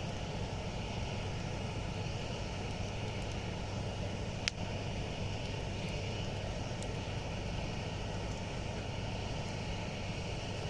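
Campfire burning with a steady low rushing sound and one sharp pop of burning wood about four and a half seconds in.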